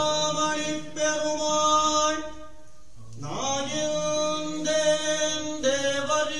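Devotional chanting laid over as background music: sustained sung notes, with a short dip about halfway through.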